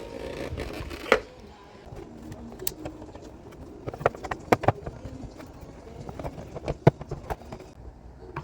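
A scattered series of light knocks and clicks at an uneven pace, the sharpest about a second in and again near the end.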